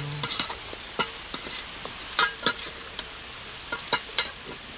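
Food sizzling in a pot while a spoon stirs it, with a handful of sharp, irregular knocks of the spoon against the pot over a steady frying hiss.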